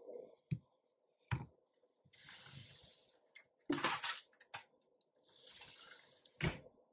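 A plastic measuring cup scooping sour cream out of a plastic tub: soft scraping and squelching, twice for about a second, with a few light knocks of the cup against the tub.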